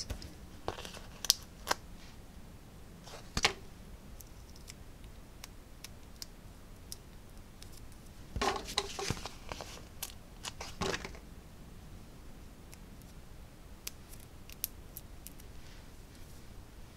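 Soft clicks and brief rustles of small paper die-cuts and foam adhesive dots being peeled and pressed by hand on a craft mat, with a few louder rustling handling noises about three, eight and eleven seconds in.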